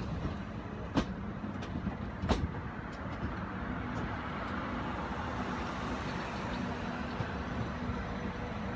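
Southern passenger train running past along the platform: a steady rumble of wheels and running gear, with a few sharp clicks early on as the wheels cross rail joints.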